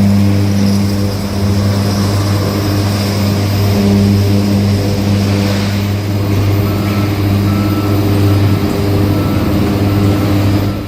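Heavy diesel machinery engine running steadily under load, a low even drone.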